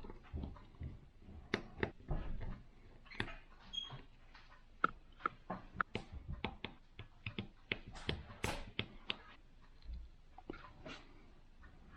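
Small irregular clicks and taps of a precision screwdriver working the tiny screws of a smartphone's internal frame, with screws and parts set down on the bench. The clicks come at uneven intervals, a little louder about halfway through and again past two-thirds of the way.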